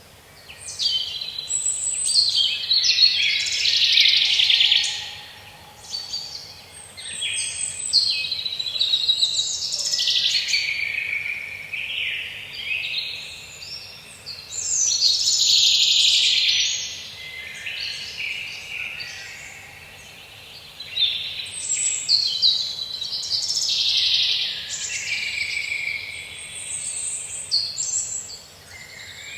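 Several songbirds singing and calling over one another: a dense chorus of high chirps that swells and eases every few seconds.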